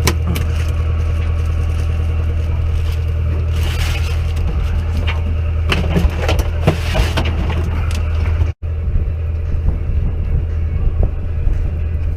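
Fishing boat's engine running with a steady low drone, with a few sharp knocks and rattles on deck a little past the middle. The sound cuts out for a split second about two-thirds of the way through.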